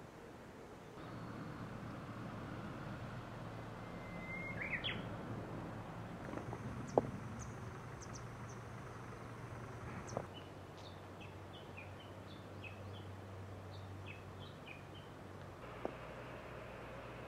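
Outdoor ambience of birds chirping in short, scattered calls over a low, steady hum, with a single sharp tick about halfway through.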